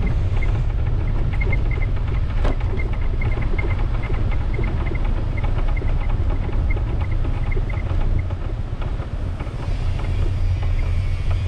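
Steady wind buffeting the microphone and tyre rumble on a concrete lane from a moving bike, with faint short high chirps scattered through.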